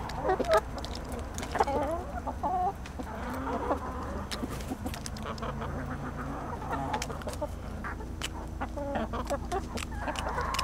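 A flock of backyard hens clucking and calling over one another in short, overlapping calls, with scattered sharp clicks and a low steady hum underneath.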